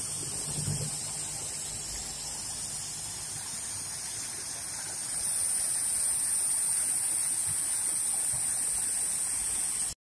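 Water of a small stream cascade rushing over a low rock ledge, a steady rush that grows a little louder, with a stronger high hiss, about halfway through.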